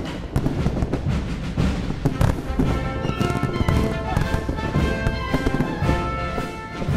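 Fireworks salute bursting in rapid bangs and crackle over a constant low rumble. Music with held notes joins about two and a half seconds in.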